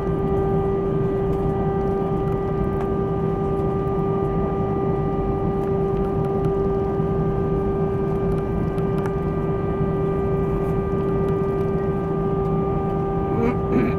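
Jet airliner's engines at idle heard from inside the cabin while taxiing: a steady whine over a low rumble, with a short knock near the end.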